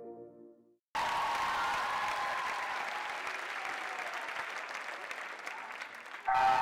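Audience applauding in a theatre hall. The applause starts suddenly about a second in, after the tail of soft synth music has faded, and music comes in near the end.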